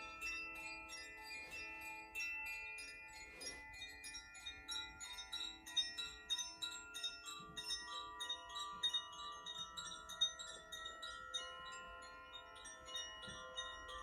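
Koshi chimes played gently, their rods tinkling in quick uneven strikes, several a second, over many overlapping long-ringing tones.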